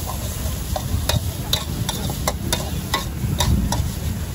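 Metal spatula clanking and scraping against a wok as rice is stir-fried, about two to three sharp clanks a second, over a steady low rumble.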